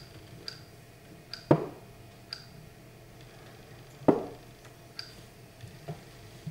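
Wooden chess pieces knocking down onto a wooden board in quick blitz play: two solid knocks, about a second and a half in and about four seconds in. Lighter, sharp high clicks come in between from taps on a smartphone used as the chess clock.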